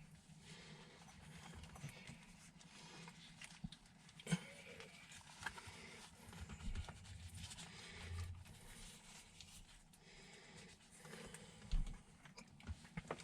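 Faint handling noise: scattered light knocks and clicks with soft rustling as the new gearshift knob and its wired connector are worked down into the shifter.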